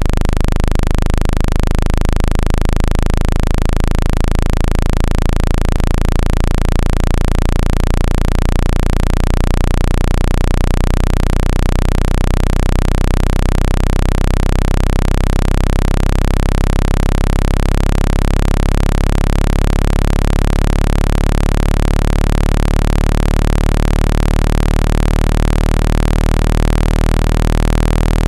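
Synthesized speaker-cleaning tone: a loud, steady low-pitched electronic hum with a hiss over it, made to vibrate trapped water out of a phone speaker.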